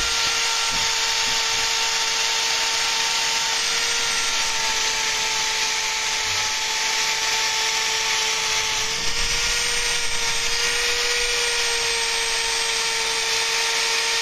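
Small electric power tool running steadily with a high, even whine over a hiss while polishing a knife.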